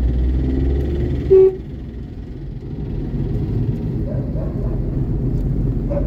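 Steady low rumble of road traffic, with one short, loud vehicle horn toot about a second and a half in.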